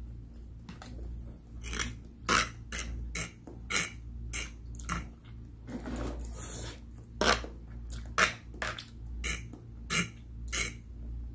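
Close-miked chewing and wet mouth smacks as instant pancit canton noodles and luncheon meat are eaten, in irregular clicks, with a slurp of noodles about six seconds in.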